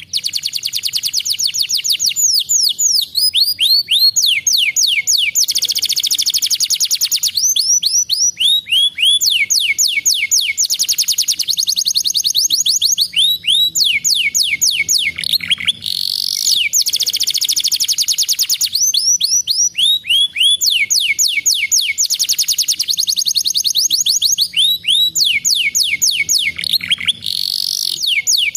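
Domestic canary singing: phrase after phrase of fast trills, each a rapid run of repeated falling notes, with a rising whistled glide twice.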